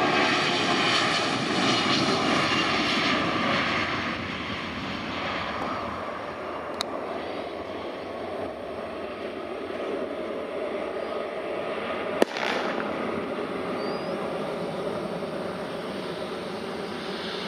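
Boeing 757-200 freighter's jet engines at takeoff thrust, loud as it rolls down the runway, then fading to a steadier, more distant rumble as it lifts off and climbs away. A single sharp click sounds about twelve seconds in.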